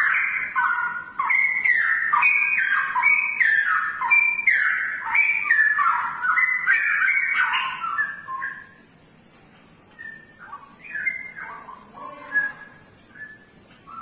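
Cucak rowo (straw-headed bulbul) singing a loud, rich run of quick warbling phrases. The song breaks off about eight seconds in, and only a few scattered softer notes follow.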